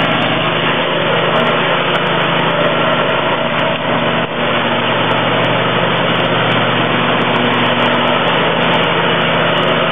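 Exmark 48-inch Turf Tracer walk-behind mower, hydraulic drive with three blades, running steadily as it mows.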